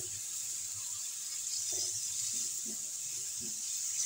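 Masala of onion, ginger-garlic, spices and freshly added chopped tomatoes frying in ghee in a frying pan: a steady high sizzle, with a few soft sounds of the spatula stirring through the middle.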